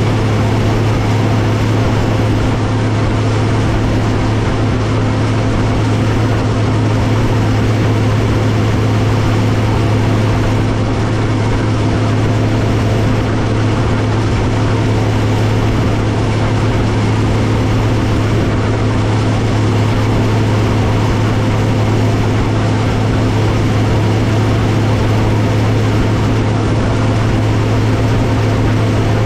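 Allis-Chalmers 7095 tractor's diesel engine running steadily under load while chopping hay, heard close to its exhaust stack.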